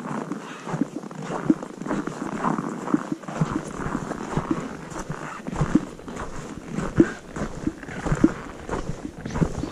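Footsteps crunching in cold, dry snow, roughly two steps a second, with rustling from clothing and the microphone being handled.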